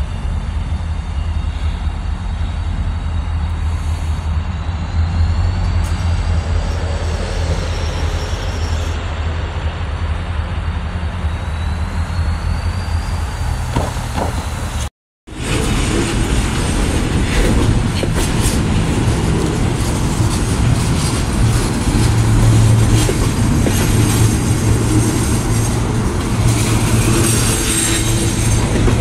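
CSX diesel locomotive idling and rumbling low as it creeps up to a grade crossing. After a break, a freight train of container-carrying well cars rolls past close by, its wheels clattering and rattling over the rails, with high-pitched squeals near the end.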